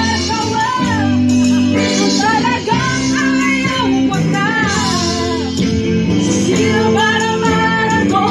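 A woman singing karaoke into a microphone over a backing track, her voice holding and bending long notes.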